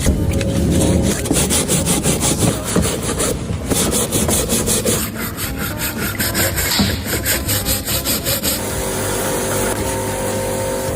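Quick rhythmic rasping strokes, about four a second, from a hand tool worked back and forth over a part. They pause briefly partway through. Near the end they give way to a steady hum.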